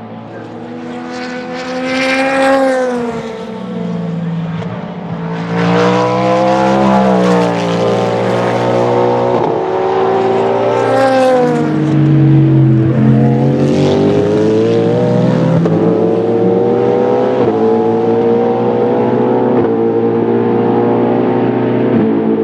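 Cadillac V-Series.R prototype's naturally aspirated 5.5-litre V8 race engine running hard, pitch climbing and dropping again and again through gear changes as the cars pass. More than one engine is heard at once in the second half.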